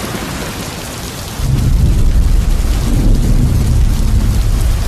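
Thunderstorm sound effect: heavy rain hissing steadily, with a deep rumble of thunder that swells in about one and a half seconds in and carries on.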